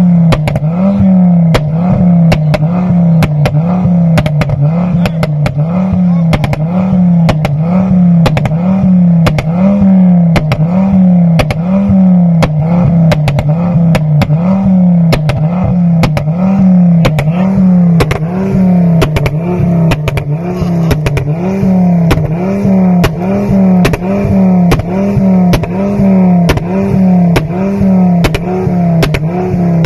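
Ford Focus ST mk2's turbocharged five-cylinder engine held at high revs, surging up and down about once a second. Sharp exhaust pops and bangs run through it, from fuel igniting in the exhaust.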